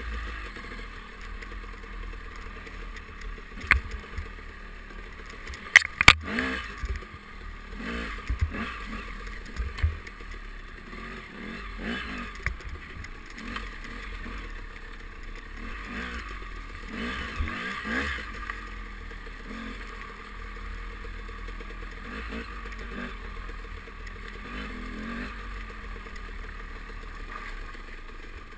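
Off-road motorcycle engine running steadily on a rough trail, with sharp knocks and clatters over it, the loudest a close pair about six seconds in.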